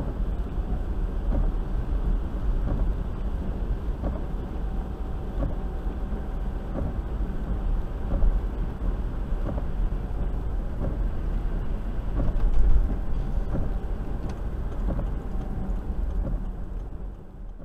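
Land Rover cabin noise on the move, heard from inside: a steady low rumble of engine and tyres hissing through floodwater and over wet road, with the windscreen wipers sweeping about once every second and a half. It fades out in the last second.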